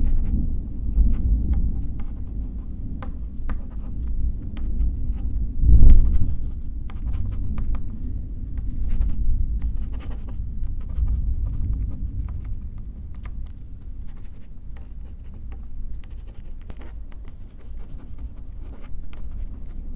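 Pen scratching across paper in short strokes over a low, rolling rumble of distant thunder, which swells to its loudest about six seconds in.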